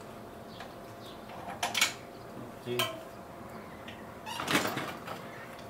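A few sharp metallic clinks, the loudest just under two seconds in, then a short rattle near the end, as a bicycle and its child trailer are handled and fitted.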